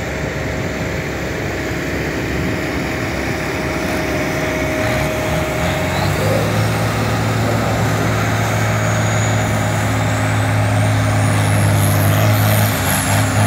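Vintage farm tractor's engine at full throttle pulling a weight-transfer sled. About five seconds in the engine settles into a loud, steady drone, and a high whine rises near the end.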